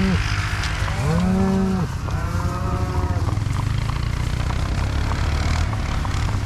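Cattle mooing: a few drawn-out moos of about a second each in the first half, over a steady low rumble.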